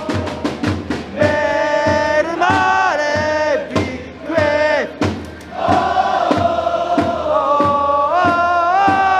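Football supporters in the stands chanting a song in unison over a steady drumbeat.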